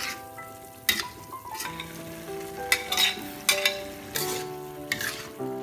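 Vegetables sizzling in a wok while a metal spatula stirs them. Several sharp scrapes and clacks of the spatula against the wok come at uneven intervals.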